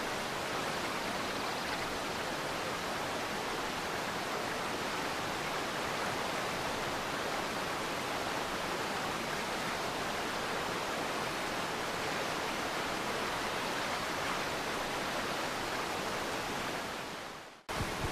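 Steady, even rushing noise, like static, that drops out abruptly near the end.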